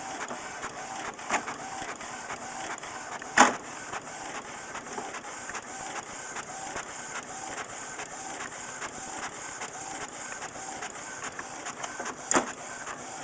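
A printer running, its mechanism whirring in a steady repeating rhythm with short whining tones. A few sharp knocks cut through it, the loudest about three and a half seconds in and another near the end.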